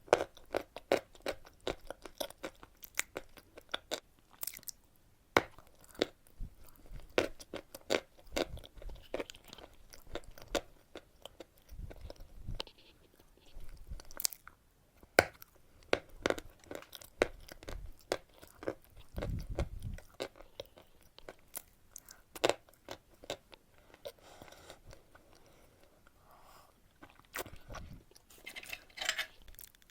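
Close-up eating chalk: sharp, irregular crunches as pieces are bitten and chewed, with softer wet chewing between.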